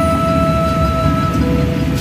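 Background music with one long held note over a dense low rumble.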